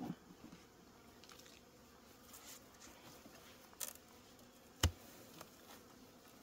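Honeybees buzzing faintly from a freshly opened hive, a busy-sounding colony. A few light clicks, and one sharp knock about five seconds in.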